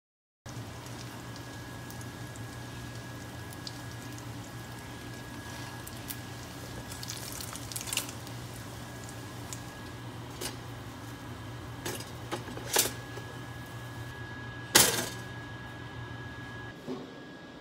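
Egg and bacon sizzling in a non-stick frying pan, with a silicone spatula knocking and scraping against the pan several times, loudest about fifteen seconds in. A steady low hum runs beneath and stops near the end.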